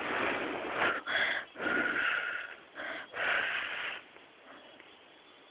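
Toy poodle puppy sniffing and snuffling right at the microphone: about five breathy bursts that stop about four seconds in, leaving faint hiss.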